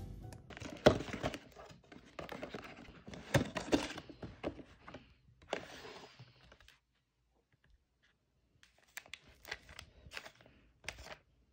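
Hands unfolding a white paperboard cake box: the paperboard rustles and crinkles, with sharp clicks and taps as the flaps are opened. A pause of about two seconds comes in the middle, then a few more light clicks near the end.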